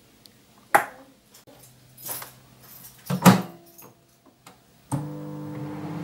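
Handling knocks from a plastic microwave egg cooker, a sharp click about a second in and a louder clunk around three seconds in. Then a Midea microwave oven starts up and runs with a steady hum for the last second or so.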